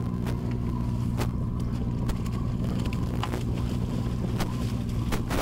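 Sportfishing boat's engine running with a steady low drone, with a few short, sharp splashes as a hooked bonita thrashes at the surface alongside the hull.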